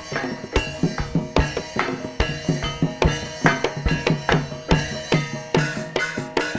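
Live ebeg accompaniment, instrumental: hand drums beating a quick, even rhythm over ringing pitched percussion, with no singing.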